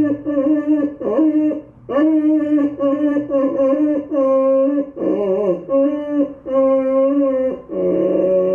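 A dog howling in a run of short, wavering, pitched notes, like singing, with a lower, longer held note near the end.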